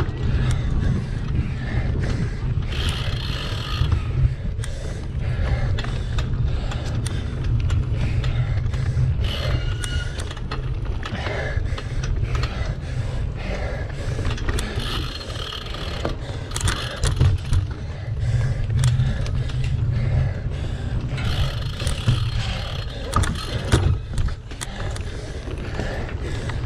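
Wind buffeting an action camera's microphone during a fast bicycle ride, with constant rattling and knocks from a single-speed cyclocross bike over rough ground.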